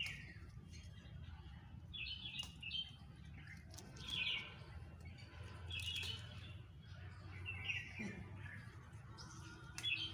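Small birds chirping in short bursts about every two seconds, over a low steady rumble.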